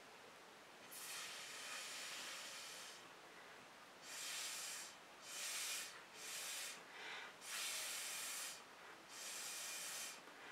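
Breath blown through a drinking straw onto wet poured acrylic paint: about six rushes of air, each lasting a second or so, with short pauses between.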